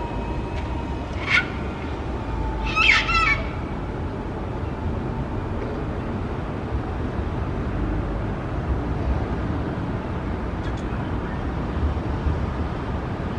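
Sulphur-crested cockatoo giving two short calls, rather than its usual loud screech: a brief one, then a longer, rougher one about a second and a half later. A steady low hum of city traffic runs underneath.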